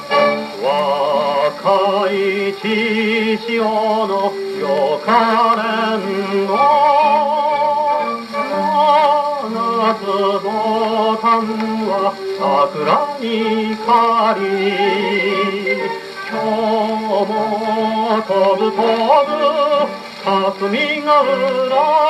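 Victor Victrola VV1-90 acoustic gramophone playing a 78 rpm record with a steel needle: a male voice sings a 1940s Japanese military song with vibrato over an orchestral accompaniment.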